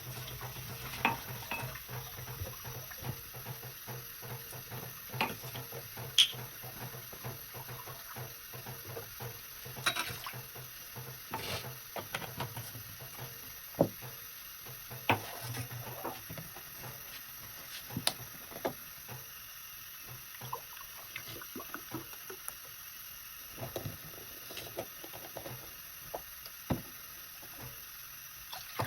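Kitchen work: dishes, pans and utensils clinking and knocking at irregular intervals, with a low steady hum through roughly the first half.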